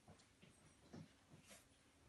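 Near silence: quiet room tone with a few faint, brief soft sounds, the loudest about a second in.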